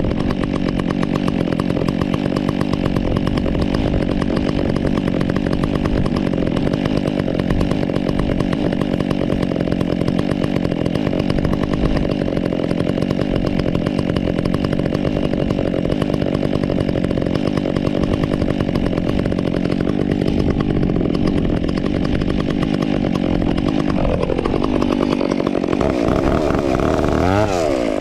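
Stihl MS 362 two-stroke chainsaw with an Egan Straight Shot performance muffler, running steadily while it warms up. Near the end its speed drops, and then it is revved up and down a few times.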